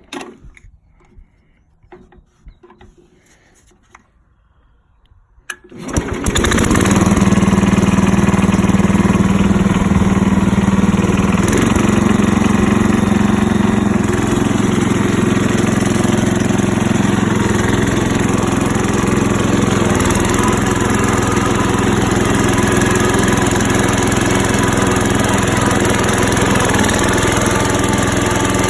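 Freshly rebuilt single-cylinder engine of a 1969 Hydro 12 garden tractor, with a new muffler, being started: a few faint clicks, then about six seconds in it catches at once and runs steadily, settling to a lower speed about halfway through.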